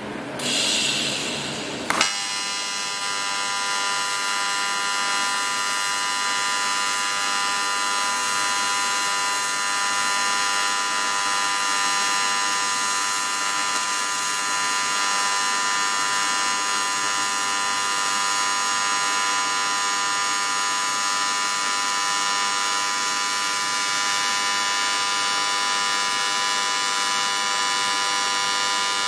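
AC TIG arc on aluminium from a Parweld XTT 202 welder, set to a 100 Hz AC frequency. A short hiss comes first, then the arc strikes with a sharp crack about two seconds in and settles into a steady, even buzz.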